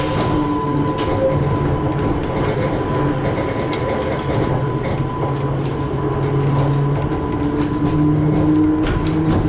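Interior of a Class 230 D-Train, a converted London Underground D Stock unit, on the move: a steady hum from its drive equipment with a constant high whine, and a few sharp clicks from the wheels on the track.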